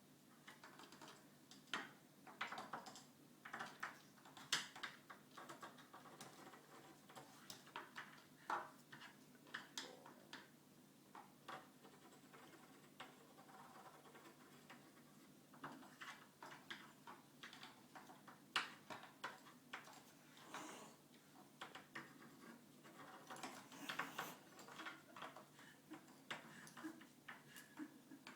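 Faint, irregular light clicks and taps, some in quick clusters, as a cat paws and bats at a pencil.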